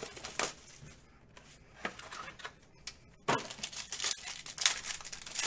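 Trading cards and their packaging being handled by hand: irregular rustling, sliding and scraping, with a sharper knock a little over three seconds in.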